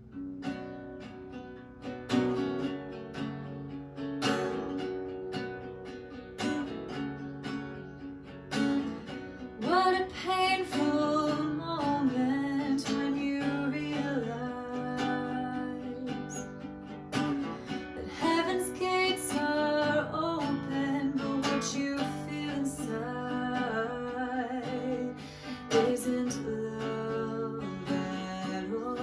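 Acoustic guitar playing a picked and strummed accompaniment, with a woman's singing voice coming in about ten seconds in and carrying on over the guitar.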